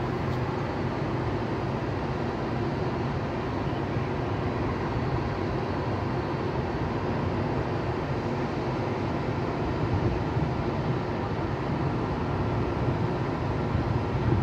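Steady hum from a Siemens Vectron (class 193) electric locomotive standing at the platform, with no change in pitch or level.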